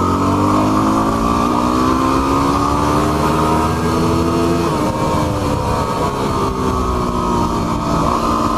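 Yamaha WR250R's single-cylinder four-stroke engine pulling the bike along. Its pitch climbs steadily for about four and a half seconds, drops suddenly a little past halfway, then holds steady.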